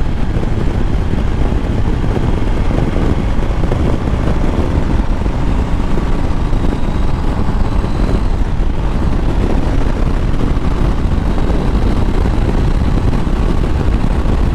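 Motorcycle on the move: steady wind rush over the microphone with the engine's drone underneath, holding an even level.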